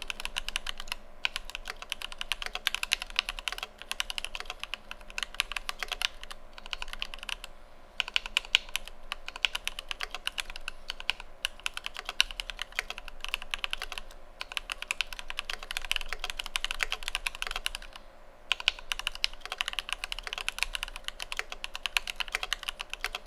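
Fast continuous typing on a mechanical keyboard: an Idobao ID80 with lubed Alpaca V2 linear switches, screw-in stabilizers and PBT Cherry-profile keycaps. Rapid key clacks come in bursts, broken by brief pauses several times.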